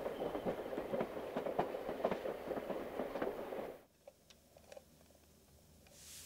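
Passenger train running, heard from inside the carriage: a steady rumble with frequent irregular clicks and knocks. It cuts off abruptly about four seconds in, leaving low quiet with a few faint ticks.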